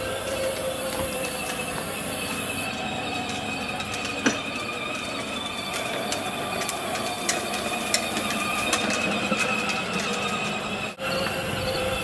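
A John Deere electric ride-on toy tractor driving, its small motor and gears whining steadily, with scattered clicks from the wheels and body.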